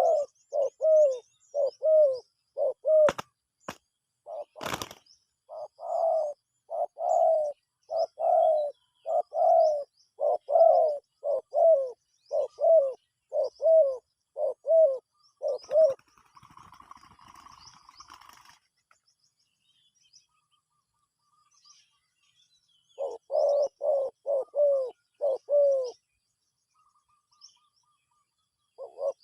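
Dove cooing: a long run of short, falling coos about two a second, then a pause and a quicker run of five coos near the end. A couple of sharp clicks come a few seconds in, a brief rustle follows the first run, and small birds chirp faintly and high in the background.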